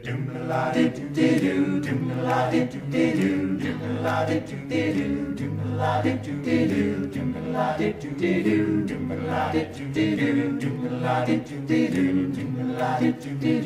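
A cappella vocal group singing a song's intro: layered voices over a low sung bass line in a steady rhythm, without instruments.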